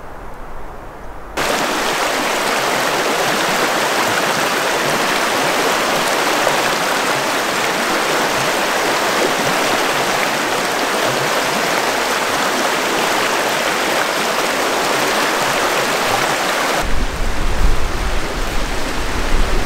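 Mountain river water rushing steadily, starting abruptly about a second and a half in after a low rumble. Near the end the rushing eases a little and a low rumble comes back under it.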